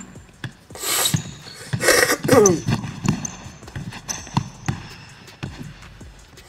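A basketball dribbled on a hardwood gym floor, a run of sharp bounces, with a short voice about two seconds in.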